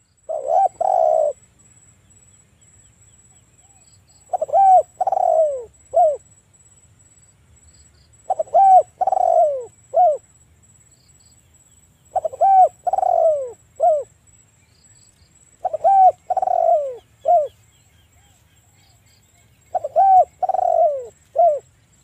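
Spotted dove (tekukur) singing its cooing song: a phrase of three or four coos ending on a single short 'kuk', repeated about every four seconds.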